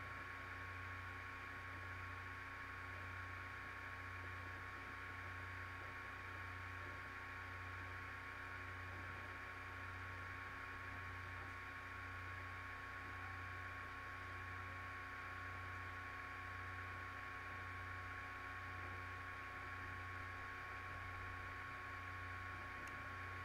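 Faint, steady electrical hum and hiss with a thin high whine; the low hum swells and fades about once a second.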